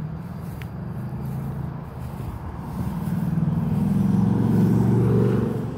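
A road vehicle driving past: a low engine hum that builds to its loudest near the end, then drops away.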